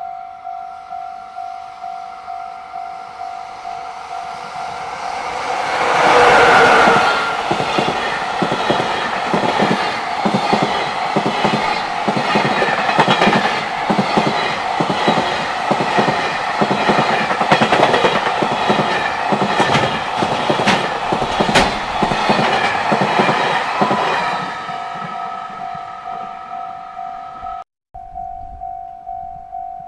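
Container freight train hauled by an EF66 electric locomotive passing close by, its wheels clicking rhythmically over rail joints for about eighteen seconds, with a short horn blast about six seconds in as the locomotive arrives. A level-crossing alarm rings in a steady, fast repeating ding before and after the train.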